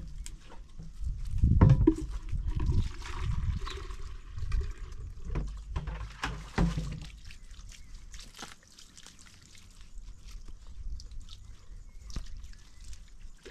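Water pouring and sloshing in a sheepskin waterskin, with irregular knocks and handling thumps; the loudest thump comes about a second and a half in.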